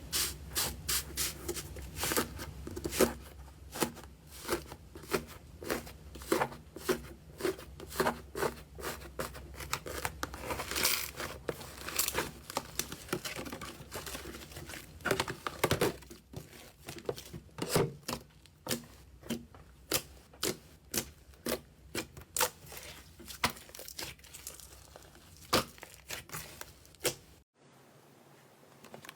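Slime being squeezed and pressed by hand, giving a dense run of crackling pops and clicks. The sound cuts off abruptly near the end and gives way to fainter clicking.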